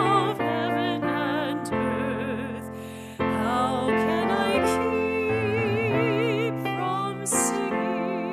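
A woman singing with wide vibrato over piano chords, in slow sustained phrases, with a brief pause between phrases about three seconds in.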